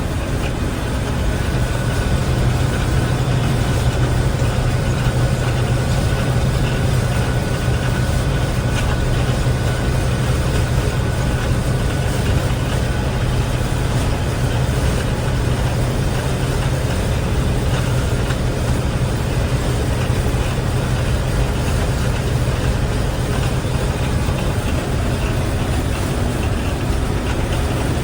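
Combine harvester running steadily while cutting wheat: a constant low engine drone over the noise of the threshing machinery, with a faint high whine through about the first half.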